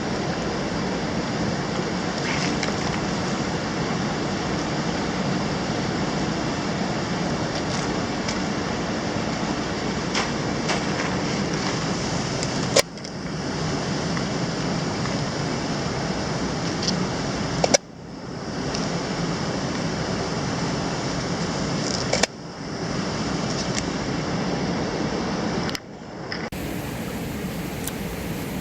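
Mountain stream water rushing steadily, with the sound breaking off and resuming abruptly four times.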